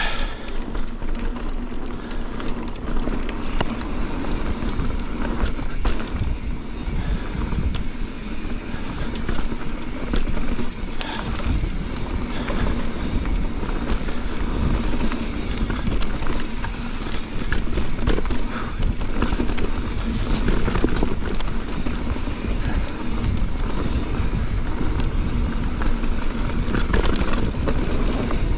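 Mountain bike being ridden fast down a rough trail: wind noise on the microphone, tyres on dirt and rock, and a steady clatter of small knocks and rattles from the bike.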